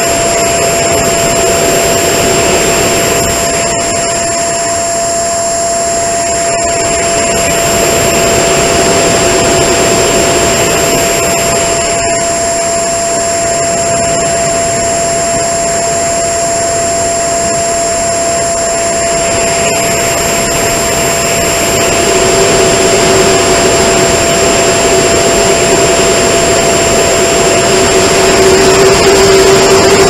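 Electric ducted fan of a small foam RC jet running in flight, heard from a camera slung under the fuselage. Its high whine rises and falls in pitch a few times over a constant rush of wind noise, and it gets louder in the last few seconds.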